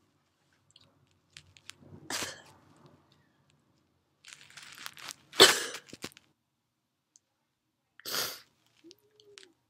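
A woman's wet sneezes: a sharp burst about two seconds in, then a drawn-in breath building into the loudest, explosive sneeze about five seconds in, and a third short burst near the end.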